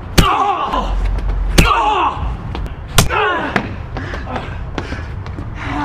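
Punches landing in a fistfight: three sharp hits about a second and a half apart, each followed by a man's short grunt or yell.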